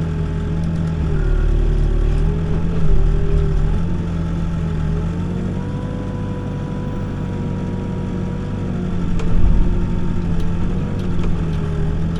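Backhoe's diesel engine running under hydraulic load as it digs, its pitch rising for a few seconds midway and easing back down. A low bump comes about nine seconds in.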